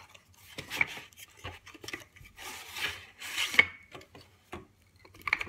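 A tabletop quoits set being unpacked: the cardboard box is slid open and the wooden board pieces and rope rings are pulled out onto a wooden table. The sound is irregular rubbing and scraping of cardboard and wood, with a few light knocks, busiest about halfway through.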